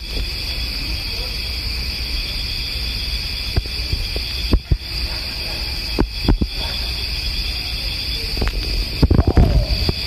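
Steady high trilling of night insects, with low rumble and a few sharp knocks throughout and a busier cluster of knocks near the end.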